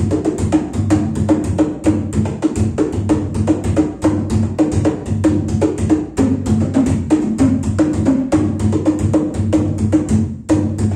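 Congas played by hand: a fast, steady pattern of slaps and open tones, with a brief break about ten seconds in.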